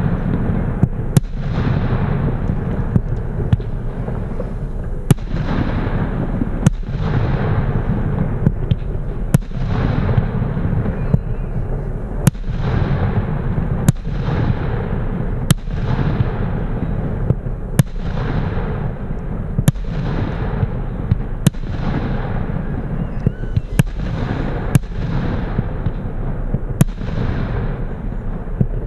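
Piromax Titanium Salute firework battery, 25 mm calibre, firing shot after shot: a sharp salute bang about every one and a half to two seconds, each followed by a rumbling echo.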